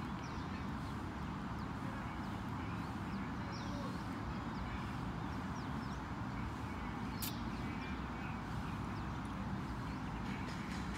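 Steady outdoor background rumble with faint, short bird chirps scattered through it, and one sharp click about seven seconds in.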